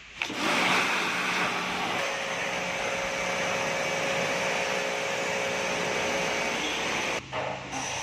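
Pressure washer spraying a jet of water onto a plastic washing-machine pulsator: a steady hiss of water with the pump's hum beneath. It starts just after the beginning and stops near the end.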